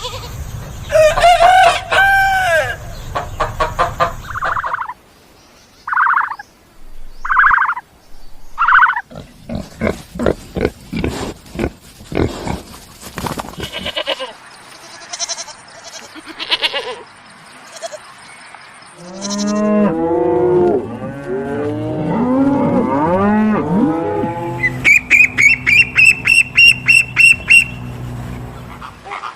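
A succession of different farm animals calling, one clip after another: pitched, bending calls at the start, a few short separate calls, a dense run of rapid clicks or pulses, low overlapping calls, and a fast repeated high call near the end.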